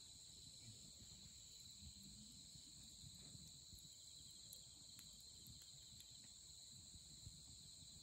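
A steady, continuous chorus of night insects singing, with a few faint, sharp pops and crackles from burning firewood scattered through it, the sharpest near the end.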